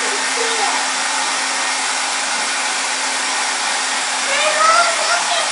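Handheld hair dryer blowing steadily, a constant rush of air over a low, even motor hum.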